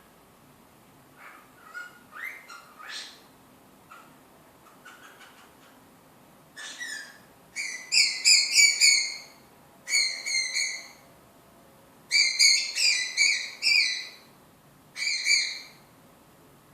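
Cockatiel chirping softly, then calling loudly in quick runs of short pitched notes, about five bursts in the second half with short pauses between.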